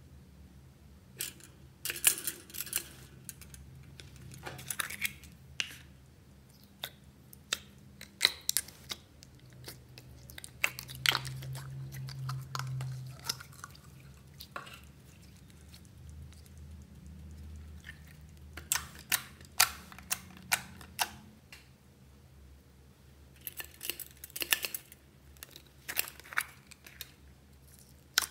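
Slime being squeezed and worked by hand in a glass dish: wet, sticky clicks and crackling pops that come in scattered clusters.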